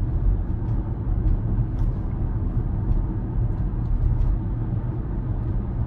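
Steady road and tyre rumble heard inside the cabin of a moving Tesla Model Y, an electric car with no engine note.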